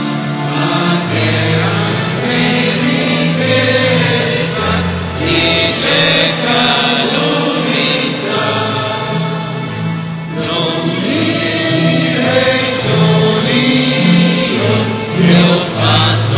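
A church congregation singing a hymn in Italian together.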